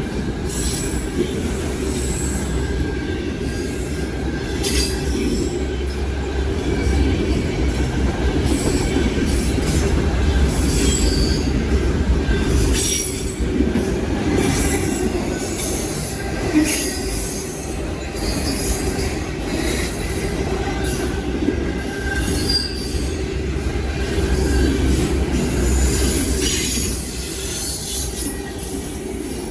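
A CSX freight train's cars rolling past close by: a steady noise of wheels running on rail, broken by many brief high-pitched wheel squeals.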